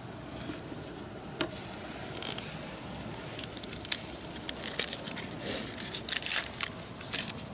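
Aluminium foil crinkling and crackling in the hands as it is peeled open around a potato baked in the coals. The crackles are sparse at first and turn dense and irregular from about three seconds in, over a steady faint hiss.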